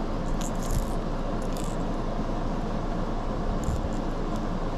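Steady whir of a window air conditioner, with a few faint light clicks as a hard-bodied crankbait and its treble hooks are handled.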